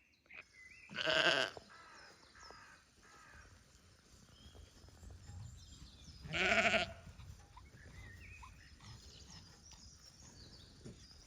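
Sheep bleating: two loud, wavering bleats, about a second in and again past the six-second mark, with fainter bleats in between.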